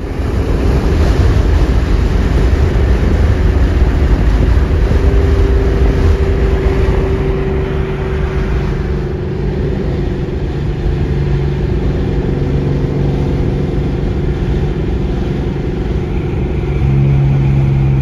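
Car engine and tyre noise at highway cruising speed, heard from inside the cabin. The engine note holds steady, then grows louder near the end.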